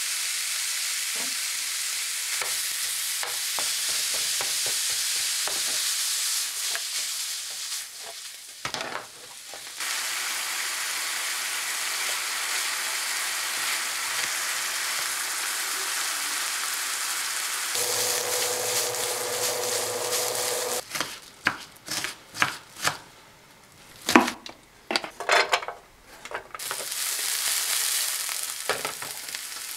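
Ground beef sizzling as it fries in a nonstick skillet and is stirred with a wooden spoon. A brief break comes about a third of the way in. Later there is a run of sharp knocks and taps, then diced onions sizzling in the pan.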